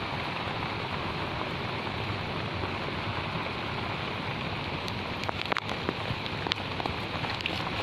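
Heavy rain falling steadily. In the second half, a scatter of sharp, close taps stands out over it.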